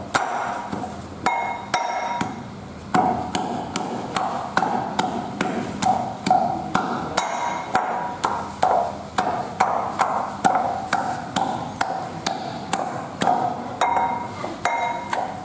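Heavy metal pestle pounding pieces of raw sea snake in a metal pot, about two to three strokes a second. Each stroke is a knock with a short metallic ring from the pot. There is a brief pause about two seconds in.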